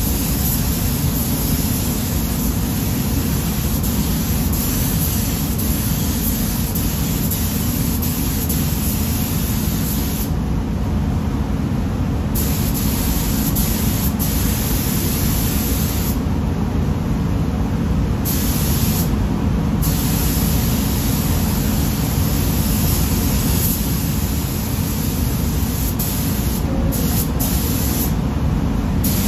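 Gravity-feed paint spray gun hissing as it sprays. The hiss stops for a second or two several times as the trigger is let off between passes, over a steady low rumble from the spray booth's air system.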